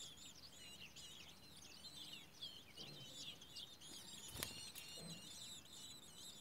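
Woodchat shrike nestlings begging at the nest: a fast, continuous faint chatter of thin, high notes that rise and fall. One sharp knock comes about four seconds in.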